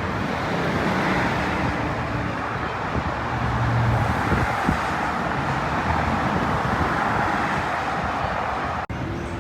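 Steady road and engine noise of a car being driven, with a brief drop-out near the end.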